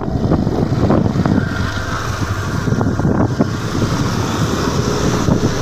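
Loud, steady wind rumble buffeting the microphone.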